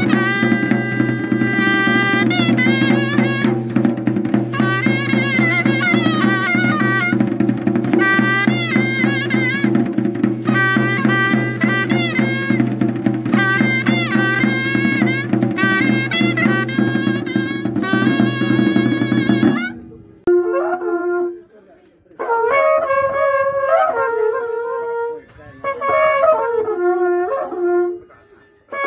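A small flared-bell wind instrument plays a wavering melody in phrases with short breaks, over a large double-headed wooden drum beaten steadily. About twenty seconds in, this cuts to spiral cow-horn trumpets (wakrapuku) sounding held notes separated by pauses.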